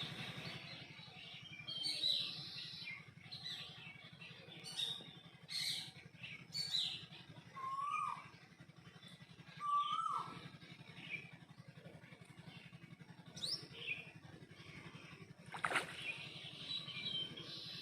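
Birds chirping and calling, many short high chirps all through, with two lower calls that rise and then fall about eight and ten seconds in. A steady low hum runs underneath.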